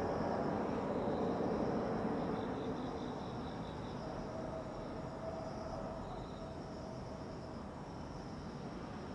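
Distant rumble of passing traffic or an aircraft over a town at night, fading away over the first few seconds. Insects trill faintly and steadily in the background.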